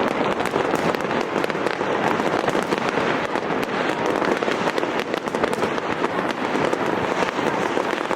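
Fireworks display with many shells going off at once, a dense, continuous crackle of overlapping bangs and pops.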